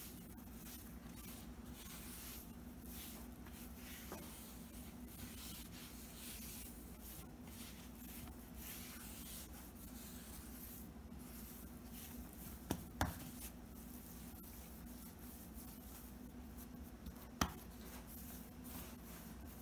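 Hands pushing and smearing sweet pastry dough across a granite countertop, a faint scraping rub repeated stroke after stroke. A few sharp light knocks come about two-thirds of the way through and again near the end, over a steady low hum.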